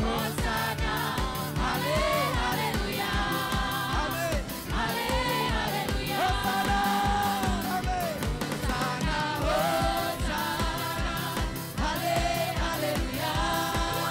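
Group of singers on microphones performing a song with a live band of Yamaha keyboard and guitar, over a steady beat and bass line.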